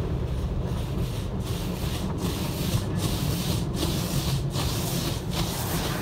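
Automatic car wash heard from inside the car: water and foam spraying and brushes rubbing over the windshield and body over a steady low rumble. The hiss rises and falls in a regular rhythm a little more than once a second, as the brushes pass.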